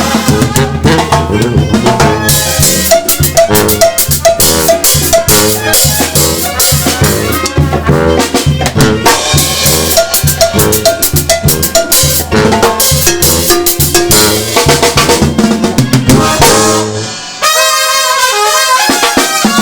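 Mexican banda music: brass and drums playing a lively tune with a steady beat. About seventeen seconds in the drums and low brass briefly drop out, and the horns play on alone for a couple of seconds.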